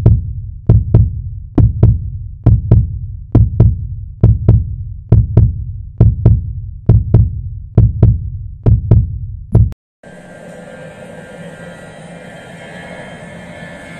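Deep, heartbeat-like thudding beats of an intro sound effect, about two a second, that stop abruptly about ten seconds in. Then comes a steady rumble and hiss of airport ambience with airliner engines running.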